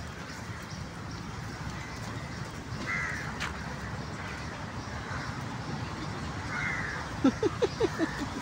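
A dog lets out a quick run of short, rising yelps, about seven in a second, near the end, over steady outdoor background noise.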